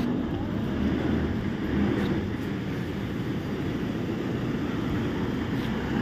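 Truck engine running with a steady low rumble as the truck pulls up.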